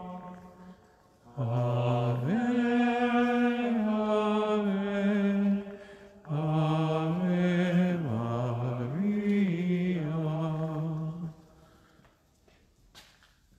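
A man's voice chanting unaccompanied in two long phrases, moving in steps between held notes, then falling quiet a couple of seconds before the end.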